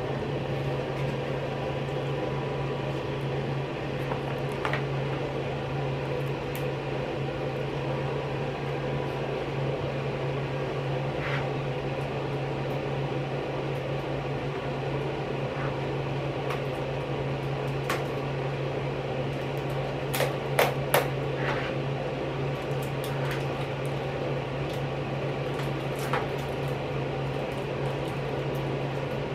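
Steady low mechanical hum, with scattered sharp clicks and crinkles from a pregnancy-test box and its wrapper being handled and opened. A quick cluster of clicks about two-thirds of the way through is the loudest part.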